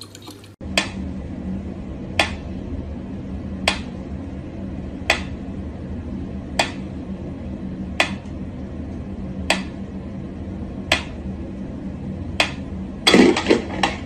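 Mechanical pendulum metronome ticking slowly and evenly, about one sharp tick every second and a half, over a low steady hum. A brief louder noise breaks in near the end.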